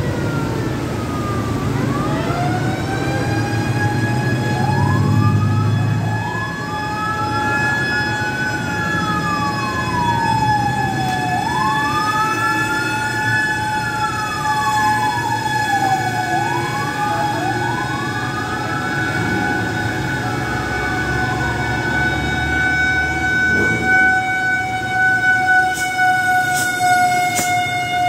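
Fire engine sirens at close range over the rumble of engines. One siren glides up and holds a steady tone; another wails, rising and falling every few seconds. A few sharp clicks come near the end.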